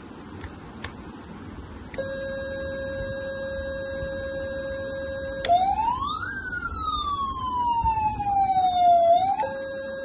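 Electronic siren from the sound module of a 1/14-scale 8x4 RC fire truck, played through its small speaker. A steady electronic tone comes on about two seconds in. Halfway through, a wail sweeps quickly up and then slowly down for about three seconds, loudest near the end, before the steady tone returns. Two faint clicks of the transmitter switches come near the start.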